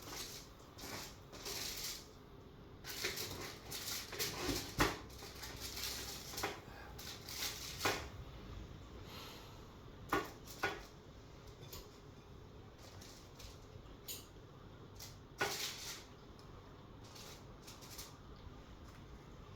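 Irregular clinks and clatter of dishes and cutlery being handled, a scattered series of sharp knocks with gaps between them.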